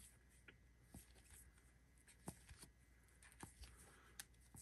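Near silence with a few faint, scattered clicks of sleeved trading cards being handled and flipped through.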